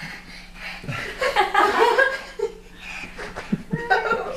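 People laughing and chuckling in short bursts, with a couple of soft thumps near the end.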